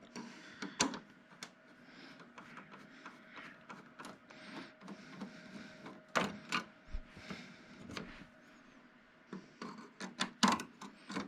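Screws being taken out of a flat-screen TV's plastic back cover: scattered clicks and taps of the screwdriver and the screws, with light handling noise in between.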